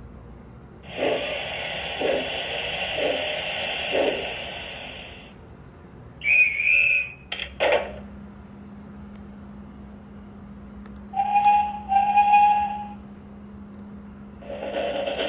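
Recorded train sound effects played from a children's sound book's push-button panel through its small speaker: steam hissing with four chuffs, then a short rising-and-falling whistle and a sharp bang, two short hoots, and near the end another engine sound starting up.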